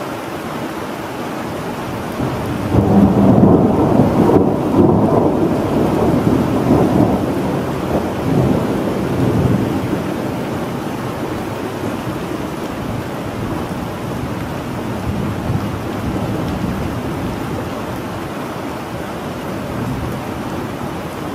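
Thunderstorm: steady rain with a roll of thunder that starts about three seconds in. The thunder peaks over the next two seconds, then rumbles away over several more seconds, leaving the rain.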